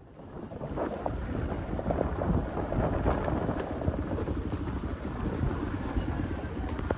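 Wind noise on the microphone, an uneven low buffeting that fades in from silence over the first second.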